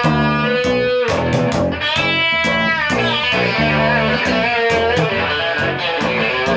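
Background music: a rock/blues band track led by electric guitar, with a steady beat of drum hits.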